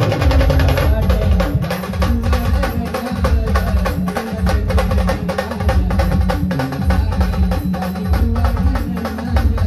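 Live band music playing a fast, driving rhythm, dominated by rapid drum and percussion strokes over deep, pulsing bass notes.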